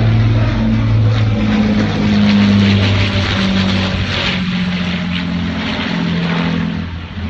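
Avro Lancaster bomber flying past, its four Rolls-Royce Merlin piston engines giving a loud, steady drone whose low tones shift slightly in pitch.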